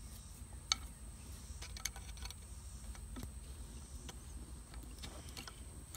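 Faint scattered clicks and taps of a female spade connector being pushed onto a subwoofer's metal terminal tab, with one sharper click just under a second in, over a faint steady low hum.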